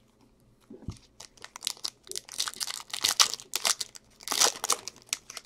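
Foil wrapper of a Bowman Chrome baseball card pack being torn open and crinkled by gloved hands, starting under a second in, with the loudest crackling in two spells in the middle and near the end.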